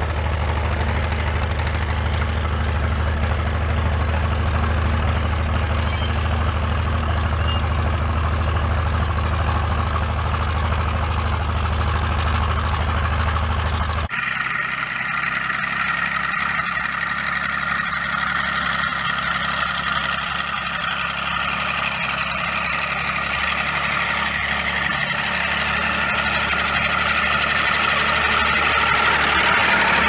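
Diesel engine of an International Harvester TD-18 crawler tractor running steadily under load as it pulls freight sleighs over snow. There is a sudden change about halfway through, after which the engine sounds more distant, then grows louder near the end as the crawler comes close.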